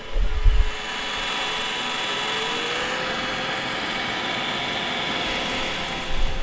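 iRobot Roomba robot vacuum running over a hardwood floor: a steady motor-and-brush whir with a whine that rises slightly in pitch a couple of seconds in. Low thumps come in the first second and again just before the end.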